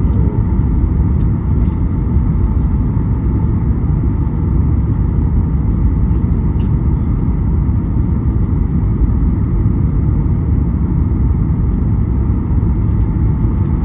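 Steady, loud, low rumble with a faint high whine held level throughout: jet engine noise from a Boeing 737 MAX 8.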